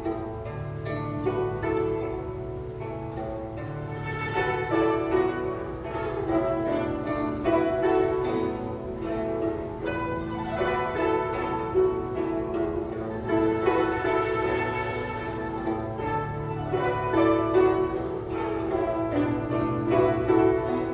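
Guzheng (Chinese zither) ensemble playing, with quick runs of plucked notes over a held low bass.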